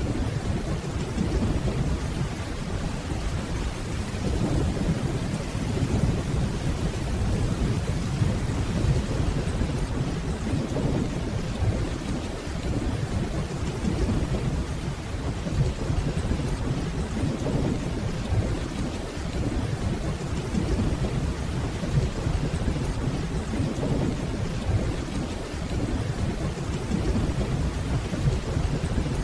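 Steady rainfall with a low, continuous rumble of distant thunder that swells and fades.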